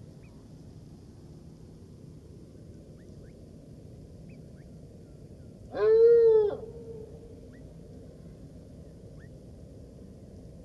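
Golden jackal giving one short howl about six seconds in, its pitch rising and then falling within less than a second. A few faint, very short high chirps sound in the quiet around it.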